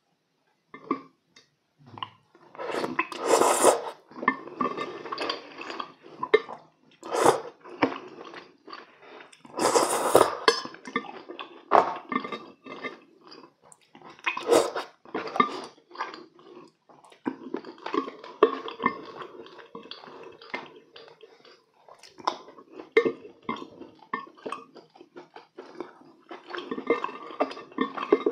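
Close-up eating sounds: wet chewing and slurping of saucy braised chicken, with several louder wet bursts, and chopsticks and a spoon clicking against the dishes throughout.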